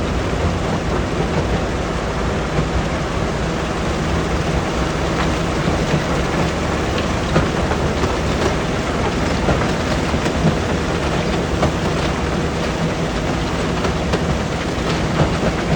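Stone crusher running, a steady heavy rumble with rocks clattering and knocking sharply inside it many times.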